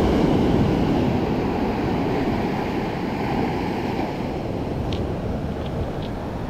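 Surf washing up the beach: a steady rush of breaking waves and foam running over sand, a little louder near the start.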